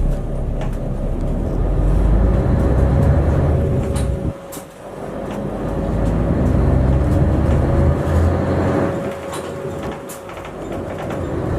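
Inside a city bus as it pulls away and accelerates: the diesel engine and drivetrain give a deep rumble that drops away briefly about four seconds in, as at a gear change, then builds again and eases near the end, with a faint steady whine and occasional light rattles.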